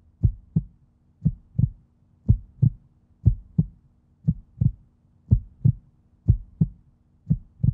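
Heartbeat sound effect: steady pairs of short low thumps, lub-dub, about one pair a second, over a faint steady hum.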